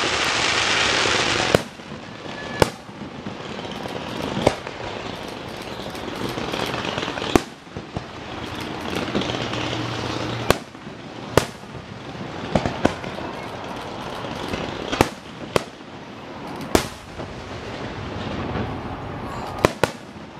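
Fireworks finale: aerial shells bursting with sharp bangs every second or two over a continuous crackle. A loud hissing crackle fills the first second and a half.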